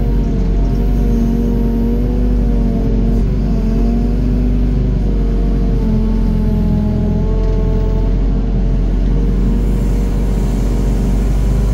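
Doosan DX55 mini excavator's diesel engine running under load as it digs and dumps soil, its note rising and dipping every few seconds as the hydraulics work, over a heavy low rumble.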